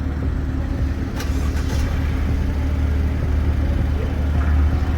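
Car engine idling steadily, with a brief knock about a second in.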